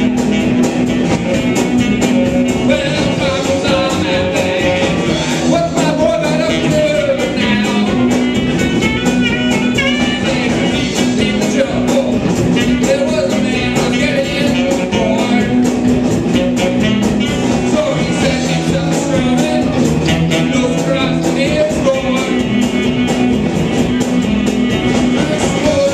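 Live rock band playing a song: electric guitar, electric bass, drums and saxophone, with a man singing lead vocals over them.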